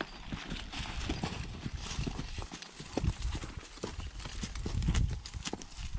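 Hooves of two heavy draft horses walking on a dirt path: an irregular clip-clop of many overlapping steps.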